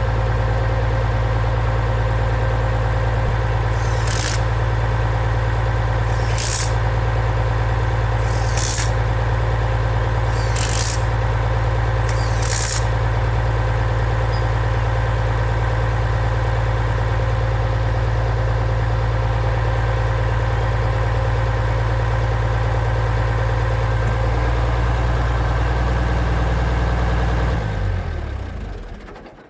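Farmall 856 tractor engine running steadily at an even speed, then shut off near the end and winding down to a stop. Five sharp clicks about two seconds apart sound over it in the first half.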